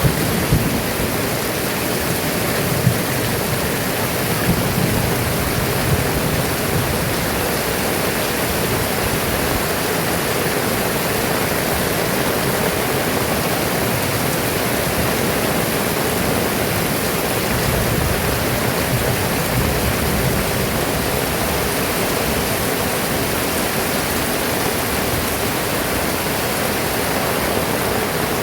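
Heavy rain pouring down in a dense, steady hiss, with a few brief louder taps in the first several seconds.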